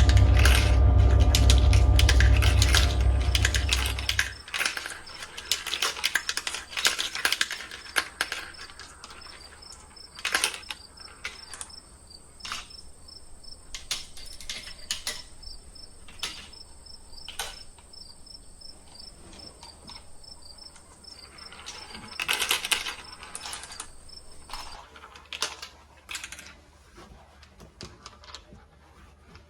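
Marbles rolling and clattering along plastic marble-run tracks: a loud rolling rumble with many clicks for about the first four seconds, then scattered clicks and clacks, with a busier cluster about three-quarters of the way through. Crickets chirp steadily underneath.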